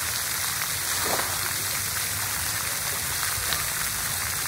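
Splash pad water jets spraying and splattering onto wet concrete, a steady hiss of falling water.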